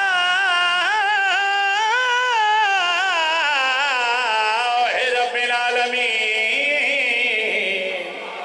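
A man chanting one long, ornamented phrase into a microphone, his pitch wavering constantly and sinking lower in the second half before fading near the end.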